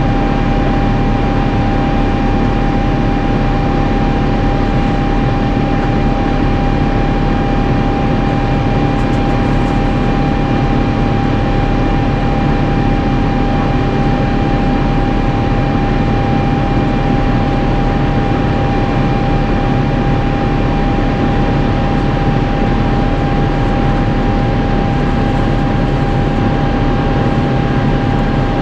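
Cabin noise inside an Airbus A350-900 in climb: the Rolls-Royce Trent XWB engines and airflow make a steady, loud rush with a constant whine on top.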